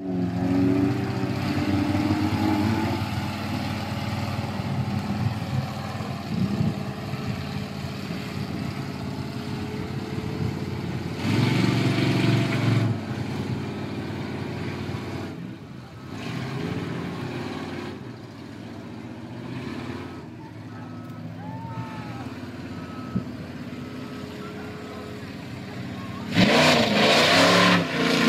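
Lifted mud truck on big tractor tires churning through a deep mud pit, its engine rising and falling with the throttle. There are louder bursts of revving about eleven seconds in and again near the end, the loudest.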